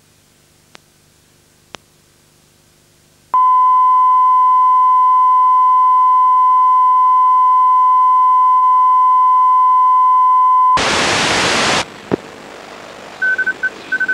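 A steady, loud test tone of an amateur-TV repeater's colour-bar test signal, which starts about three seconds in and holds for about seven seconds. It gives way to about a second of loud hiss, then a click and a few short beeps near the end.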